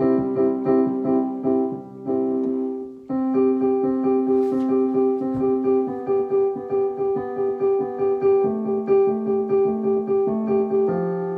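Piano playing an instrumental passage of repeated chords, struck about three times a second, with a brief break about three seconds in and a change of chord later on.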